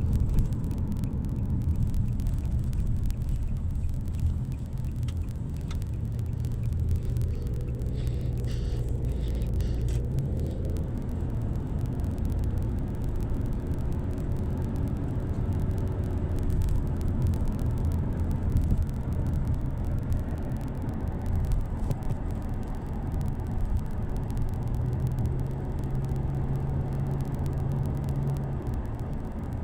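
Steady low rumble of a road vehicle running.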